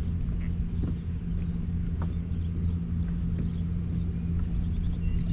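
A steady low rumble with a constant hum, and a few faint clicks scattered through it.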